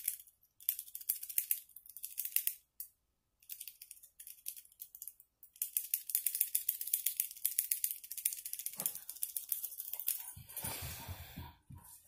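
A two-wave wave rake lock pick scrubbing rapidly over the pin tumblers of a 40 mm Bell padlock held under tension, raking the pins to open it. It makes a fast rattle of tiny metal clicks in runs of a few seconds with short pauses between, and a brief rustle near the end.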